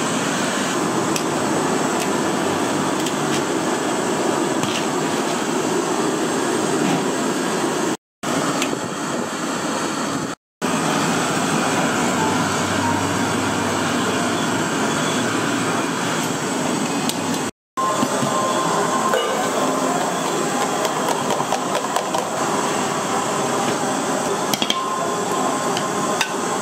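Steady roar of a busy stall kitchen, with light clinks of metal tongs against aluminium pans. The sound cuts out briefly three times.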